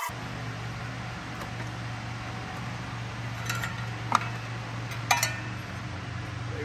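A few sharp clinks and knocks of the old clutch fan and its plastic shroud bumping against the radiator and engine parts as they are worked out of the engine bay, over a steady low hum. The loudest knock comes about four seconds in.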